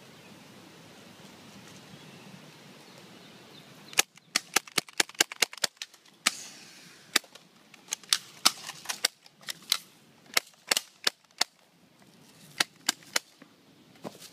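Gunfire: a rapid, uneven string of sharp shots starting about four seconds in, some fired in quick runs, after a faint steady background hush.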